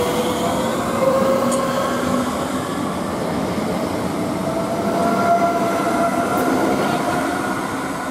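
Southeastern Class 465 Networker electric multiple unit running past the platform and away, its traction motors giving a whine of several tones that slowly rises in pitch as it gathers speed, over the rumble of wheels on the rails. The sound fades toward the end.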